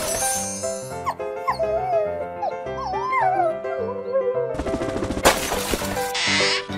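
A cartoon dog's cries that glide up and down in pitch, over steady background music, followed by a few short noisy whooshes near the end.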